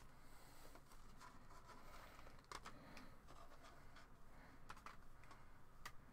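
Faint handling noises: a clear plastic zip bag rustling and a few light clicks of small 3D-printed miniature parts being taken out.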